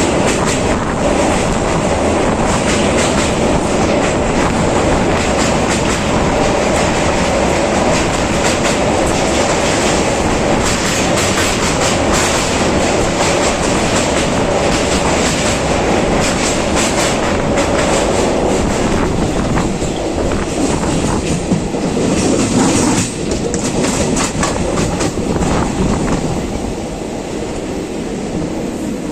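A train running on the track: a loud, steady rumble of wheels on rail with a rapid clickety-clack of wheels over rail joints, getting quieter over the last few seconds.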